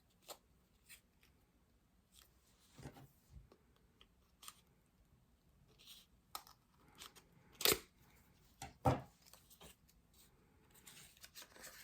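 A small cosmetics package being handled and opened: scattered light clicks and rustles, with two louder snaps about a second apart a little past halfway.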